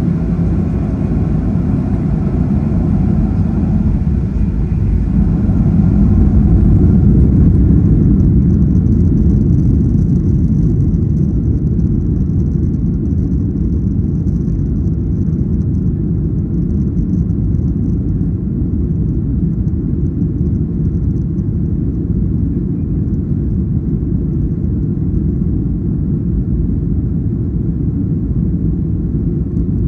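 Boeing 737-800's CFM56-7B jet engines spooling up to takeoff thrust for the takeoff roll, heard from inside the cabin: a loud, low rumble that builds over the first few seconds, peaks about seven seconds in, then holds steady.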